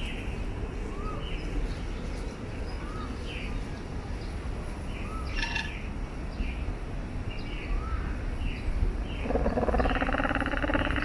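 Aviary birds calling: repeated short chirps and small rising-and-falling whistled notes every second or two, with a louder, longer call near the end.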